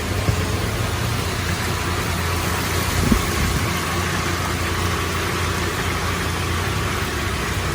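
Steady low engine hum under an even hiss, like an idling vehicle or passing traffic, with a brief knock about three seconds in.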